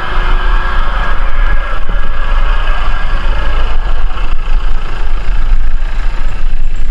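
A motor vehicle's engine running on a rough dirt road: a loud, steady drone with a heavy low rumble.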